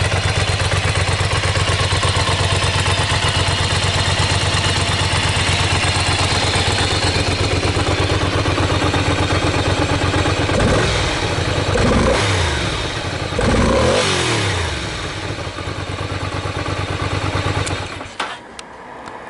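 Ducati Monster 400's air-cooled L-twin engine idling through its stock exhaust with an even, pulsing beat, then revved twice briefly, each time rising and falling back to idle. Near the end the engine is switched off and the sound dies away.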